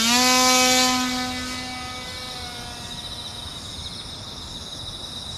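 The electric motor and propeller of a small homemade RC airplane run at high throttle during a hand launch. The steady whine rises slightly in pitch at the throw, then fades over about three seconds as the plane flies away.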